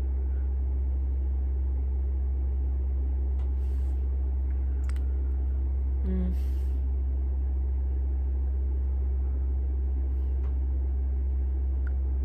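Steady low hum that never changes, with a few faint small clicks and rustles from makeup being handled.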